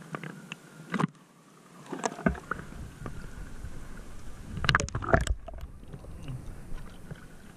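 Sea water sloshing and slapping against a waterproof action camera held at the surface. There are sharp splashes about a second in and again near two seconds, a low rumble of water against the housing, and a louder burst of splashes around five seconds.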